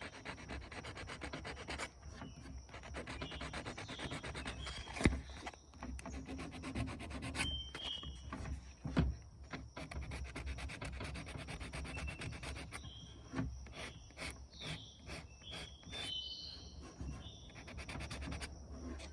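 Rapid back-and-forth rubbing by hand on a wooden surface, as in hand sanding or scrubbing off the old finish, with short squeaks and two sharp knocks about five and nine seconds in.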